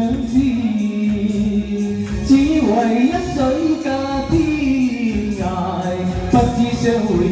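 A man sings a Chinese song into a handheld microphone over a karaoke backing track with a steady beat, holding and sliding between long notes.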